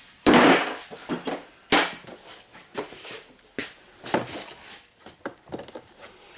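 Metal hand tools being handled and set down: a short rough clatter, then scattered clinks and knocks at irregular intervals.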